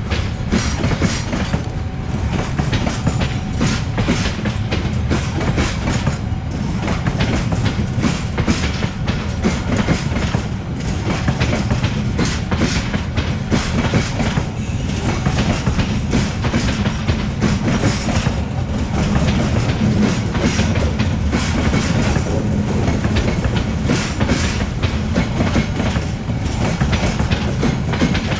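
Train passing close by, its wheels clattering over the rail joints in a continuous run of clicks and clunks over a steady rumble.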